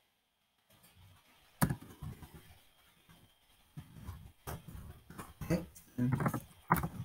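Typing on a computer keyboard: irregular key clicks and knocks starting a little under a second in, with a sharper knock about one and a half seconds in.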